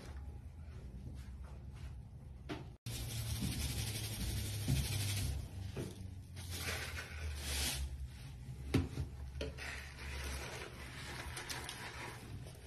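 Wet detergent granules and soap foam being pushed and squished by a gloved hand, a soft wet rubbing over a low steady hum, with a few sharp clicks later on. The sound drops out briefly about three seconds in at a clip change, and is louder for a few seconds after it.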